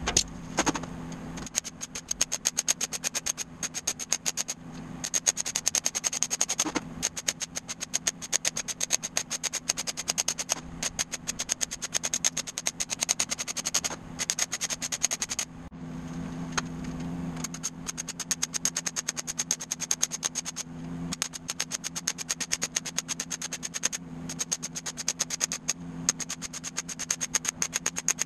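Welding on stainless-steel body panels: a rapid, irregular crackle of sharp clicks in bursts with short pauses, over a steady low hum.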